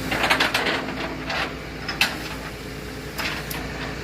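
Mechanical clattering and rapid clicks, with a single sharp knock about two seconds in, over a steady low hum.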